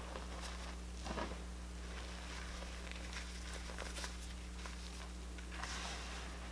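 Fingers squeezing and pressing crushed gym chalk powder, giving soft, irregular crunching. It is louder about a second in and again near the end, with a steady low hum underneath.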